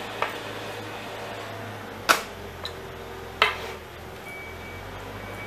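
Cylindrical laptop battery cells and multimeter probes handled on a wooden board: a light click, then two sharp knocks about a second and a half apart with a faint tick between them, over a steady low hum.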